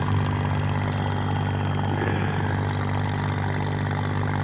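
Subaru EX40 14 hp single-cylinder air-cooled petrol engine on a small boat running steadily at a constant speed, with no change in pitch.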